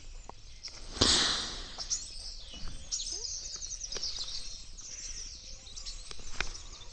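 Small birds chirping and trilling outdoors, with a short scuff or rustle about a second in.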